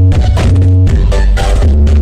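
Loud electronic dance music with heavy, sustained bass, played through a large professional PA sound system during a sound check.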